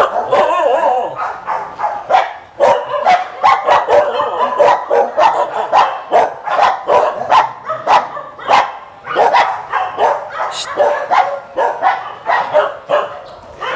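Many dogs barking together in their kennels, a dense run of overlapping barks with no break.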